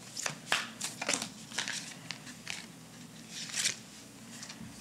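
Tarot deck being shuffled by hand: quick, crisp card flicks and slaps, densest in the first second, then scattered, with a louder flick about three and a half seconds in as cards are drawn.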